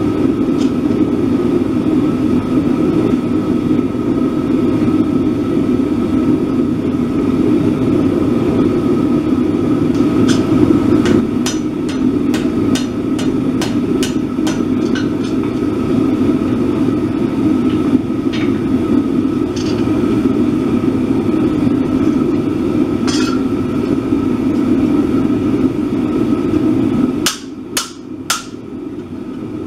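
Hand hammer striking hot steel on an anvil: a quick run of blows, about two or three a second, from about ten seconds in, then a few single blows, and a short cluster of strikes near the end. A steady low roar runs underneath and cuts out near the end.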